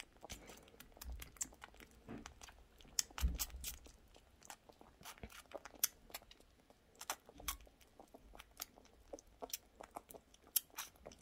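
Baby squirrel suckling formula from a feeding syringe: irregular wet smacking clicks, with a couple of soft thumps in the first few seconds.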